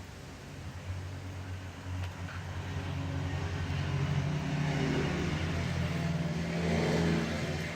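Wobbling ceiling fan running: a low hum with a rushing whoosh that grows steadily louder, loudest shortly before the end.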